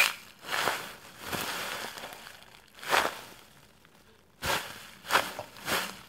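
Thin clear plastic bag crinkling as hands scrunch a foam squishy inside it: a run of crackly crumpling strokes, with a short lull a little past the middle.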